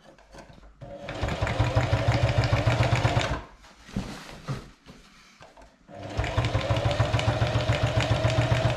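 Singer Heavy Duty 4411 sewing machine stitching heavy sail-cover cloth: two runs of a couple of seconds each with a fast, even stitching rhythm, and a pause of about three seconds between them.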